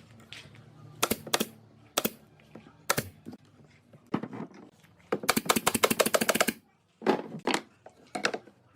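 A series of sharp clicks and taps from hard objects, with a fast rattling run of clicks lasting just over a second about five seconds in, then a few heavier knocks.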